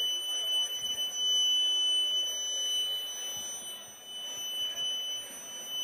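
A continuous high-pitched sine tone, unexplained and annoying to the crowd, blares steadily from the stadium's PA system.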